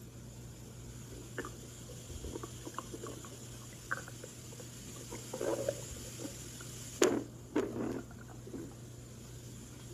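A human stomach growling: scattered short gurgles and squeaks, bunched more densely about five and a half seconds in and again just after seven seconds. A sharp click about seven seconds in is the loudest sound.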